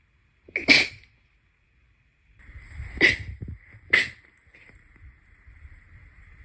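Three sharp sneezes: one about a second in, then two more about three and four seconds in, a second apart.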